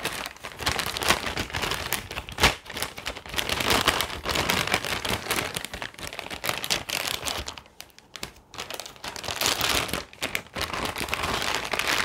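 Metallic anti-static bag crinkling and rustling as a graphics card is worked out of it by hand, in uneven spells with a short pause about two-thirds of the way through.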